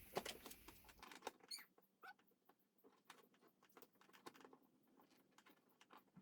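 Near silence, broken by faint scattered light clicks and ticks.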